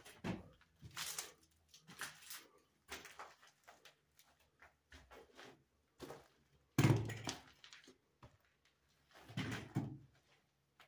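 Footsteps on a debris-strewn floor, with short scuffs and crunches about once a second, and one louder door thump about seven seconds in.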